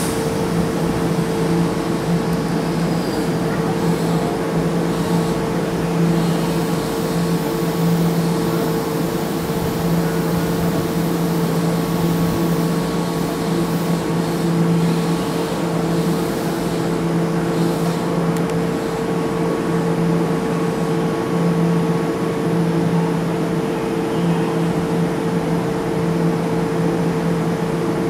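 Keihan electric train at the station platform, giving off a steady humming drone with two constant low tones from its onboard equipment.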